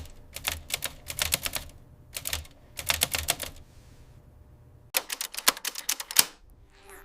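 Typing: rapid key clicks in short runs, with a pause of about a second around four seconds in.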